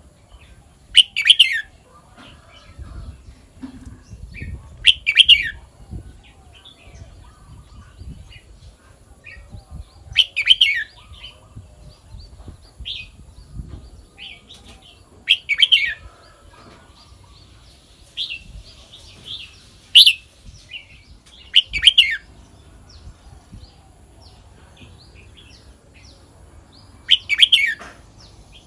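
Red-whiskered bulbul singing: short, loud, whistled phrases about every five seconds, seven in all, with soft scattered notes between them.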